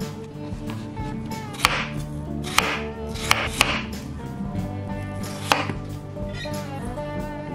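Chef's knife slicing raw potatoes on a wooden cutting board: about five sharp knocks of the blade meeting the board, irregularly spaced, over soft background music.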